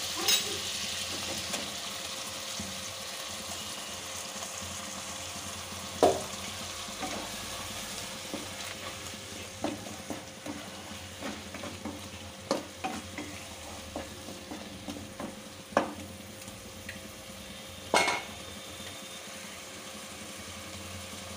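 Tomato and onion paste sizzling in hot mustard oil in a kadai while a spatula stirs it, knocking sharply against the pan now and then, loudest about six seconds in and near the end.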